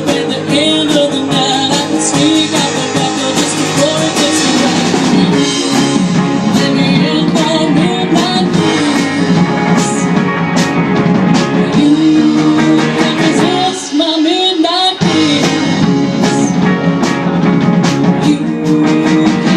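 Live rock and roll band playing, with electric guitar and drum kit. The bass and drums drop out for about a second some fourteen seconds in, then come back.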